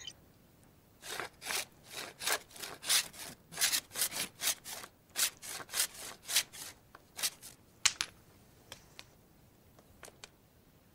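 A flint notch tool scraping and shaving a wooden stick: quick rasping strokes, about three a second, stopping about eight seconds in, with a few faint scrapes after.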